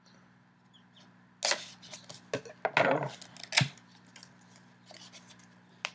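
Cardboard and plastic packaging being handled and opened: about a second and a half in come several loud crackles and scrapes, with a longer scrape in the middle and a sharp click after it, then light handling ticks.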